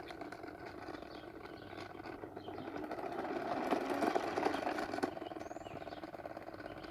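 Toy bubble lawnmower clattering and whirring as it is pushed along, its mechanism running with a rapid, steady clicking that grows louder about halfway through.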